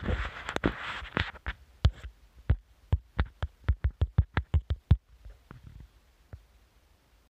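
A run of sharp knocks, packed close together at first, then single knocks coming faster and faster until they stop about five seconds in.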